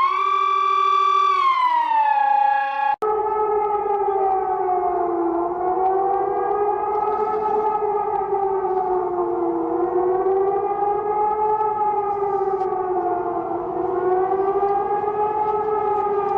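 An electronic alarm tone rises, holds and falls, then cuts off abruptly about three seconds in. A wailing outdoor civil-defense siren follows, its pitch slowly rising and falling with about four seconds between troughs.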